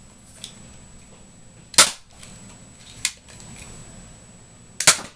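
Nerf Zombie Strike Double Strike spring-powered dart blaster fired twice: two sharp pops about three seconds apart, with a fainter click between them as the hammer is cocked again.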